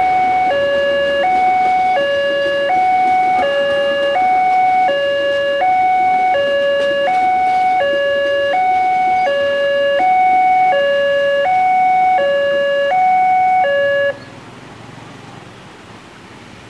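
Railway level-crossing warning alarm sounding a two-tone electronic signal, a lower and a higher tone alternating about every third of a second over the rumble of a passenger train passing, then cutting off suddenly about 14 seconds in as the crossing clears.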